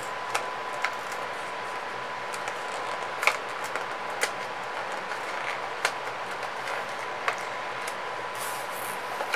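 Fingers working open the taped flap of a small cardboard box: scattered light clicks and taps of cardboard being handled, with a little rustling near the end, over a steady hiss and a faint steady high tone.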